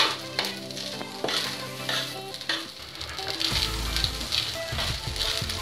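Spatula stirring and scraping fried rice around a hot black pan, with repeated scrapes, while the rice sizzles as it fries.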